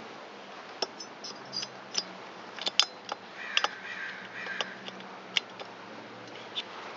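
Light, irregular clicks and taps, about ten of them, from the cylinder bolts and cylinder being handled and set in place on a small two-stroke trimmer engine. A brief rustle comes midway.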